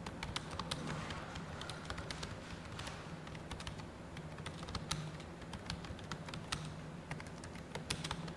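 Fast, irregular typing on a computer keyboard, keystrokes clattering in quick runs during a timed typing test, over a low steady hum.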